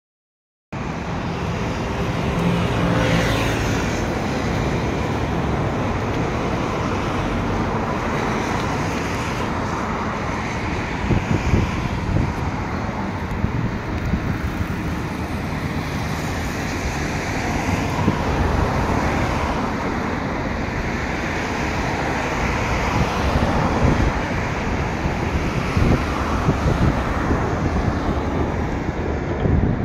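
Steady road traffic noise, an even rushing hum with uneven surges. A vehicle's engine is heard briefly about three seconds in.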